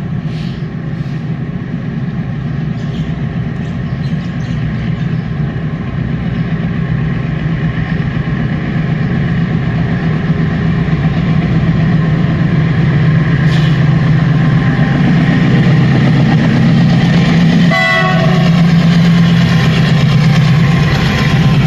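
Twin WDG-6G diesel-electric locomotives running with a steady, deep engine drone that grows gradually louder. About 18 s in there is one short horn blast.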